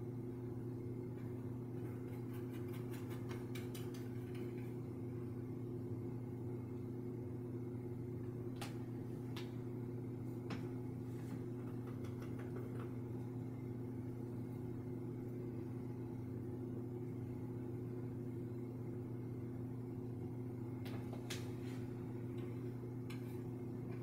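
Steady low electrical or fan hum, with a quick run of light scratchy ticks a couple of seconds in and a few faint single clicks later.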